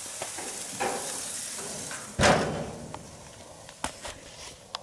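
Steaks sizzling on a gas grill, then a single loud thump about two seconds in, after which the sizzle is much fainter, with a few light clicks.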